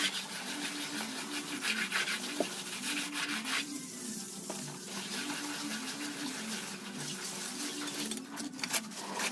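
A steel trowel scrapes and spreads wet concrete along the top of a hollow concrete block wall in uneven strokes, with a few sharp taps near the end. A low repeating tune plays underneath.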